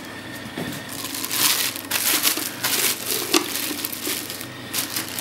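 Packaging being handled: plastic bags and cardboard crinkling and rustling in irregular bursts.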